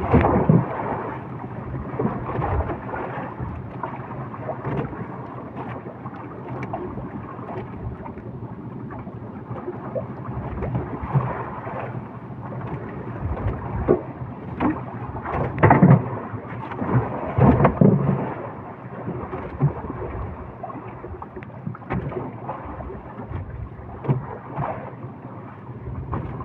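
Churning, foaming seawater splashing against the side of a small fishing boat, with rumbling buffets on the microphone. There are louder splashes or knocks just after the start and twice about two-thirds of the way through.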